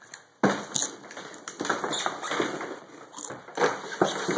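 Cardboard rifle box being handled and opened: irregular scraping and sliding of cardboard with light taps, starting abruptly about half a second in.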